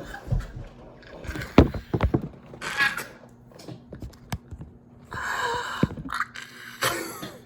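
Scattered knocks and clicks with a few short breathy bursts of noise, from a person moving and handling things.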